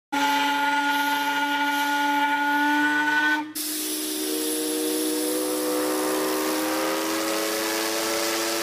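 Two ocean liners' steam whistles in turn. The first is a steady, sustained blast that cuts off about three and a half seconds in. A second long blast follows at once, with a steady hiss and a pitch that slowly rises as it sounds.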